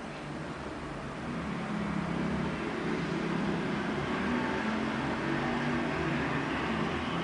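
Steady low rumble with a hiss over it, growing a little louder about two seconds in.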